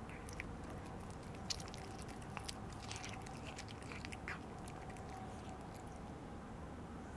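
A domestic cat chewing and biting at a piece of food, with irregular wet clicking bites that die away after about four and a half seconds.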